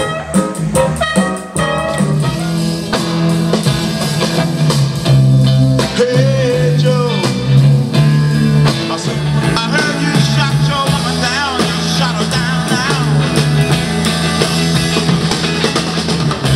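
Music with guitar over a steady bass line, with wavering held notes coming in about ten seconds in.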